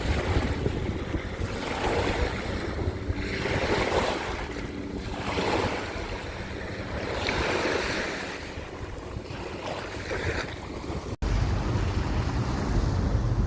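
Ocean waves washing onto the shore in repeated surges, with wind buffeting the microphone as a low rumble. About 11 seconds in the sound cuts out for an instant, and the wind rumble is heavier after it.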